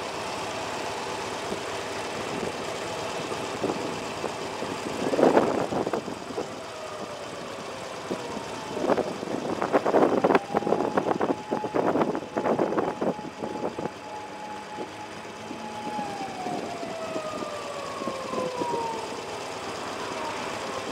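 Motorcycle engine idling while stopped at an intersection amid city traffic. Passing vehicles are heard as tones that slide down in pitch, one held level for several seconds before falling. Loud bursts of noise come about five seconds in and again for several seconds mid-way.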